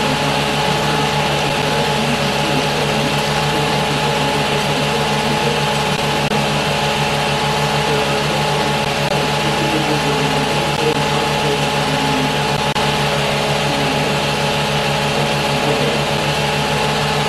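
Film projector running steadily: a motor hum with a fast, even mechanical clatter from the film drive, unchanging throughout.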